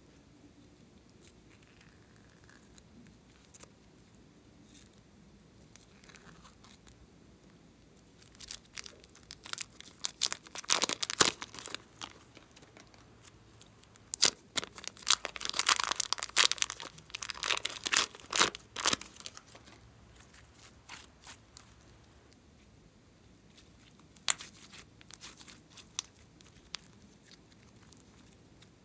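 Hands squeezing and kneading soft clay into slime, giving bursts of dense sticky crackling and popping. The crackling comes in two long spells through the middle, with a few scattered clicks near the end.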